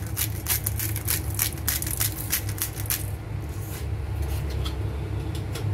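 Salt and pepper being sprinkled onto a sandwich: a quick run of crisp ticks, about five a second, that thins out to a few scattered ticks after about three seconds, over a steady low hum.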